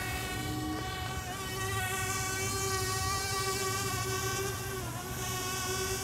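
Parrot Bebop quadcopter hovering, its motors and propellers giving a steady whining hum, with a brief dip in pitch about five seconds in as the motors change speed.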